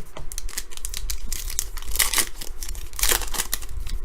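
Trading card pack wrapper being torn open and crinkled, with quick clicks of cards being handled. The louder rustles come about a second, two seconds and three seconds in.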